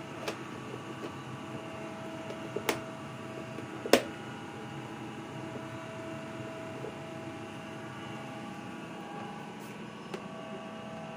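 Lid of a plastic food container pressed on and its clip latches snapped shut: a few sharp plastic clicks, the loudest about four seconds in, over a steady hum.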